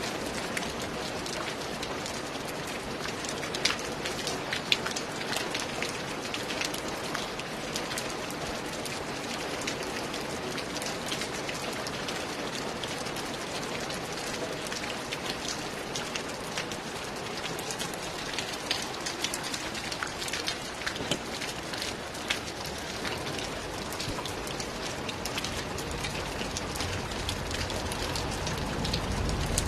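Steady rain falling, a continuous hiss full of individual drop impacts, with a low rumble swelling near the end.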